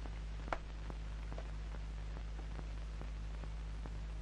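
Steady low hum and hiss of an old film soundtrack, with faint, evenly spaced ticks a few times a second and a slightly louder click about half a second in.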